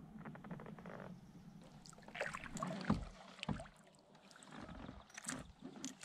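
Kayak paddle strokes: the blade splashing and dripping in the water, with a few soft knocks, the loudest about two to three and a half seconds in.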